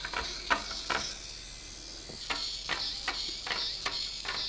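Hexbug Spider robot walking on a wooden tabletop: its plastic legs tap out sharp ticks about two or three a second over a steady high whir from its small gear motor. The ticking stops for about a second, starting about a second in, then resumes.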